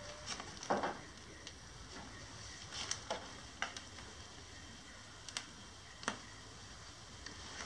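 Scattered small clicks and ticks at irregular intervals, about one a second, over a faint steady hiss.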